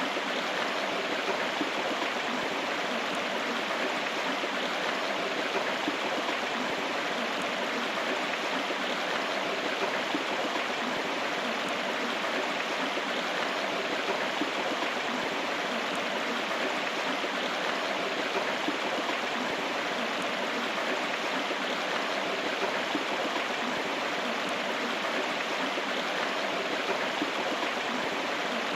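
River water flowing steadily over rocks, an even rushing sound.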